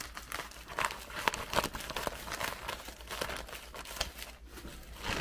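Thin plastic bag crinkling and rustling as it is cut open with scissors and pulled back by hands in plastic gloves, with irregular sharp crackles.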